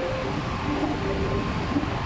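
MTR East Rail Line MLR (Metro-Cammell) electric multiple unit running between stations, heard from inside the passenger car: a steady rumble of wheels on track, with faint whining tones that come and go.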